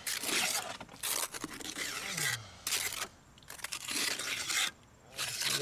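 Small hand trowel scraping a thin coat of wet cement onto a concrete foundation wall, in about five strokes of roughly half a second to a second each.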